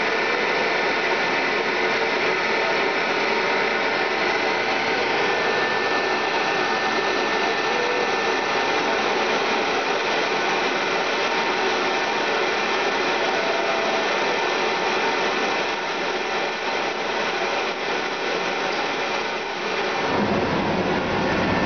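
Ecostar ECO2GC1A forced-draft gas burner's blower fan running steadily, the pre-purge before ignition. About twenty seconds in, a low rumble joins it as the burner lights.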